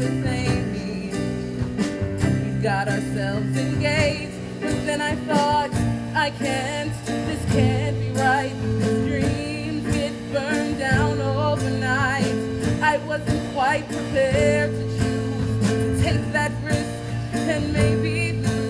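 Musical theatre song accompaniment with steady bass notes under a wavering melody line, with no words sung.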